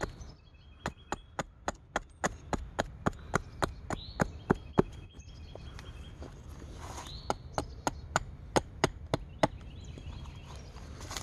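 A small hatchet chopping a cherry-wood spoon blank: quick, light cuts at about three or four a second, in two runs with a pause of about two seconds between.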